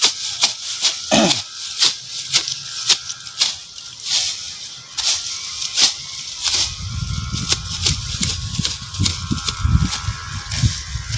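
Parang (machete) slashing through dry grass and weeds: a crisp swishing chop about twice a second. A low rumble comes in about two thirds of the way through.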